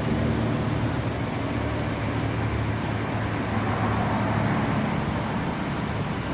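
Steady road traffic noise: a continuous low rumble and hiss of cars, with no distinct events.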